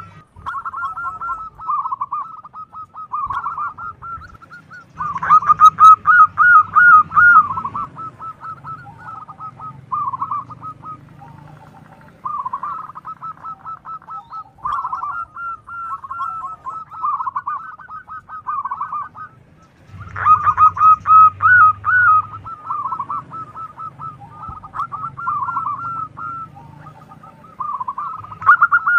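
Zebra dove (perkutut) cooing: phrases of rapid, rolling staccato coos repeated one after another, with louder bouts about five seconds in and about twenty seconds in.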